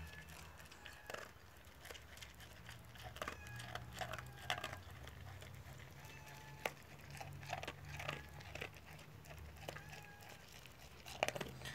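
A dog crunching dry kibble off the ground, a quiet, irregular run of crisp crunches and clicks as it eats.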